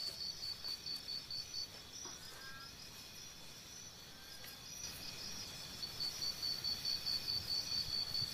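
An insect chirping in a rapid, even, high-pitched pulsed trill of about five pulses a second. It drops away about one and a half seconds in and comes back about six seconds in, with a faint bird call in the gap.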